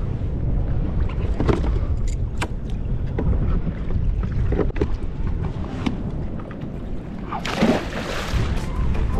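Steady low rumble of wind and water around a kayak, with scattered small clicks and knocks from handling gear. About seven and a half seconds in, a loud splash lasting about a second breaks at the surface beside the hull as a fish thrashes there.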